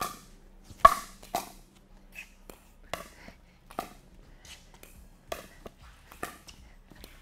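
Pickleball rally: paddles striking the plastic ball back and forth, about eight sharp pops at uneven spacing, the loudest about a second in, each echoing in a large indoor court hall.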